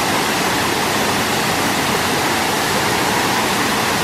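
Nabegataki Falls pouring steadily: a loud, even rush of falling water with no change throughout.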